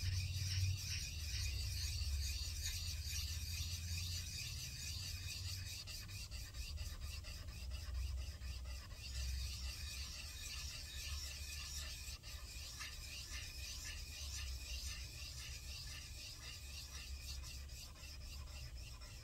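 Metal vise jaw rubbed back and forth by hand on an abrasive sheet on a flat board: a steady, rhythmic scraping of metal on grit as the jaw face is lapped flat.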